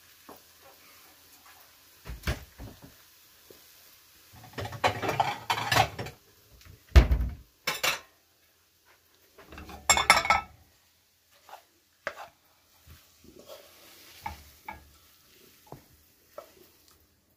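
Cookware being handled: a wooden spatula scraping and knocking in a non-stick frying pan and dishes clattering, in a few separate bursts. The loudest is a heavy knock about seven seconds in, and light taps follow.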